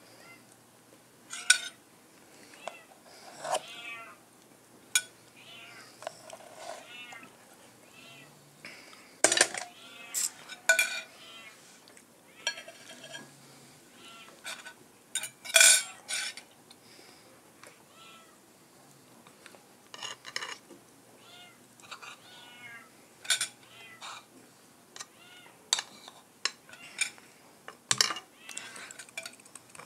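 Spoon and fork clinking sharply against a plate now and then, with a cat meowing again and again between the clinks.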